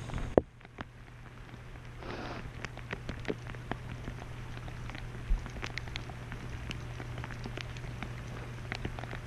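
Steady rain falling, with scattered single drops ticking close by. A single sharp tap comes about half a second in.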